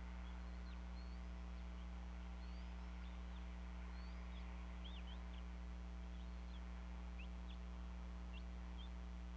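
Steady low electrical hum from the nest camera's audio line, with faint, short, high bird chirps scattered throughout.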